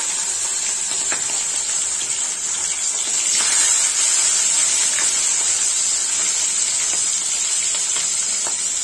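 Fish head pieces frying in hot oil in a steel wok: a steady sizzling hiss with a few faint crackles.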